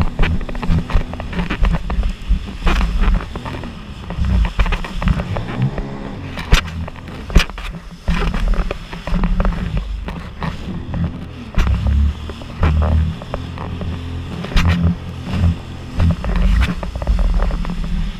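Sea-Doo personal watercraft engine running at speed, its low drone rising and falling in pitch as the throttle changes. The hull slaps hard on the waves with irregular sharp cracks and splashes, and wind buffets the microphone.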